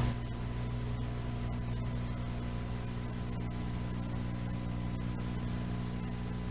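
Steady electrical hum of several even tones over a faint hiss: the background noise of an old videotape transfer, with no music or voice on the track.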